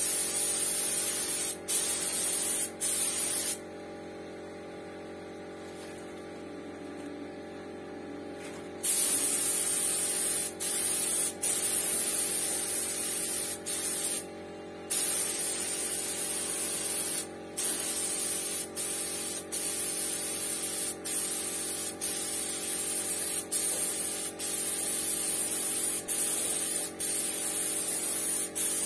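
Gravity-feed compressed-air paint spray gun spraying: a steady hiss in long passes, cut by many brief breaks as the trigger is let go, with one pause of about five seconds a few seconds in. A steady hum runs underneath throughout.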